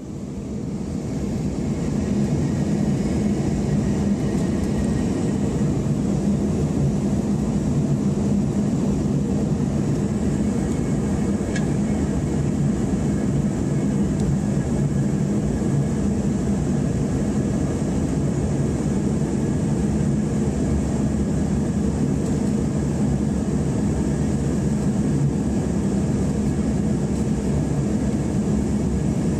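Steady in-flight airliner cabin noise: the constant rumble and hiss of engines and airflow heard from inside the cabin, fading in over the first second or so and then holding level.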